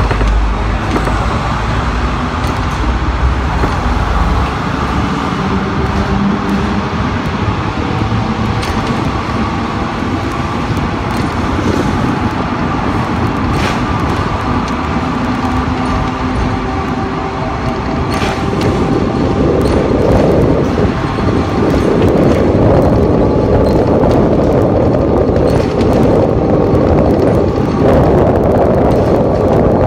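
Hong Kong double-deck electric tram running along street track: a steady rumble of steel wheels on the rails with the faint whine of its electric motors and occasional short ticks. The rumble grows broader and louder about two-thirds of the way through.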